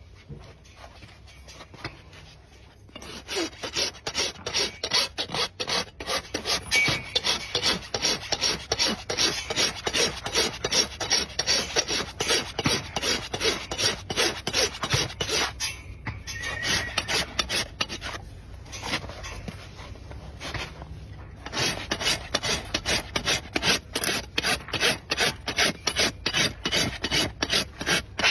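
Farrier's rasp filing a horse's hoof in quick, rhythmic back-and-forth scraping strokes, about three a second, with two short breaks partway through.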